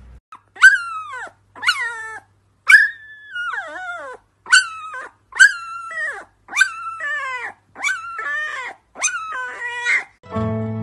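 An animal calling out about ten times, roughly once a second, each cry high and sliding down in pitch. Guitar music comes in near the end.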